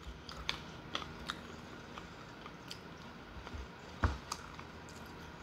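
Chewing and biting on a mouthful of spinach salad, with scattered soft clicks of a fork picking at the plate and one louder knock about four seconds in.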